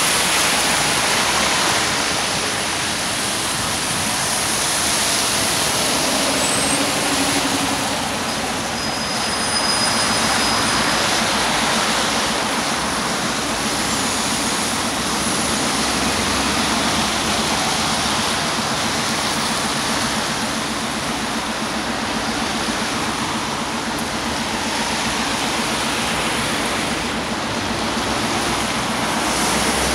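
Traffic on a rain-soaked road: a steady hiss of tyres on wet asphalt from passing cars and buses, with a Scania OmniLink city bus pulling in to the stop.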